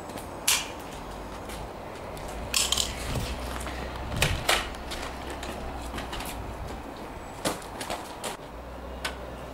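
Toy foam-dart blasters being primed and fired: about eight sharp plastic clacks at irregular intervals, over a low steady rumble.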